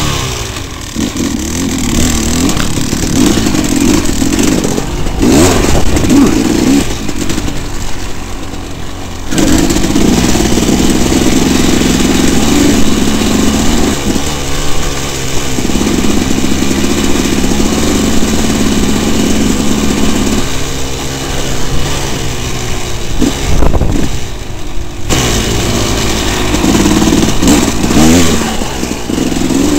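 Dirt bike engine running under changing throttle, revving up and easing off again and again, with a couple of brief let-offs.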